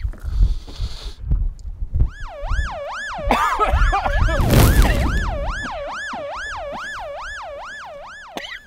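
A siren sound effect, a fast wail whose pitch swings up and down about two to three times a second. It comes in about two seconds in and fades out near the end. A loud rushing hiss swells over it in the middle.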